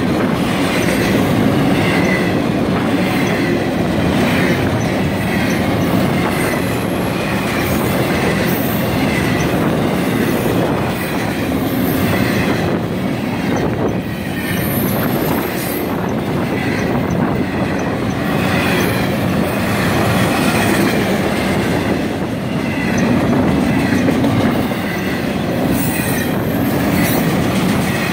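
Intermodal freight train cars, double-stack containers and trailers on flatcars, rolling past close by: a steady loud rumble and clatter of steel wheels over the rails, with brief high wheel squeals now and then.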